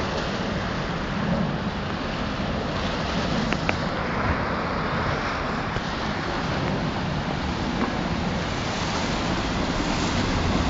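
Floodwater of the swollen Tiber surging in choppy waves, a steady rushing wash of water, with wind rumbling on the microphone.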